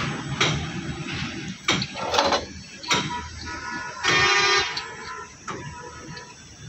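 A brief horn honk about four seconds in, among a scatter of sharp knocks.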